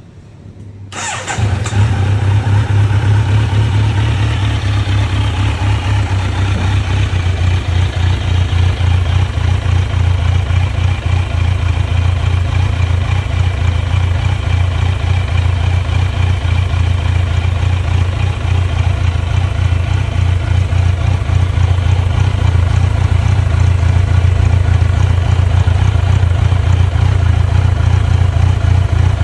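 A 2023 Kawasaki Z900's inline-four engine, fitted with an Akrapovic slip-on exhaust, starts about a second in and then idles steadily through the aftermarket muffler.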